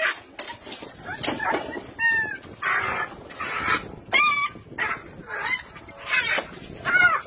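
Caged dogs yelping and whining over and over, short cries that rise and fall in pitch about once a second, with some rougher bark-like bursts among them.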